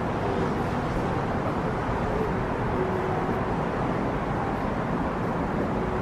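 Steady low rumble of distant city road traffic, unchanging in level, with no distinct events standing out.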